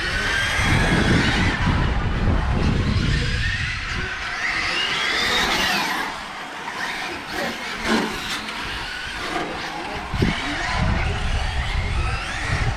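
Electric motors of radio-controlled touring cars whining, rising and falling in pitch as the cars accelerate and brake on a wet track. A low rumble fills the first few seconds, and there are a couple of sharp knocks later on.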